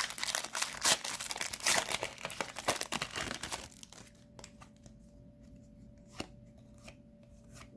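Foil wrapper of a hockey card pack being torn open and crinkled for about three and a half seconds, then much quieter, with a few faint clicks.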